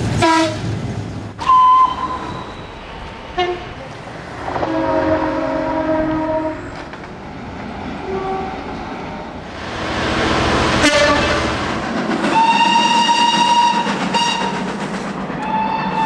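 A run of different train horns: several short blasts, then a two-tone chord held for about two seconds. Around the middle a train rushes past with a sharp crack, followed by a long steady horn blast and another blast starting near the end.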